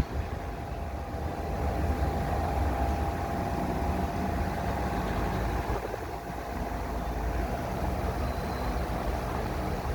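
Ventisol 50 cm electric fan running: a steady whir of the motor and blades with a rush of moving air.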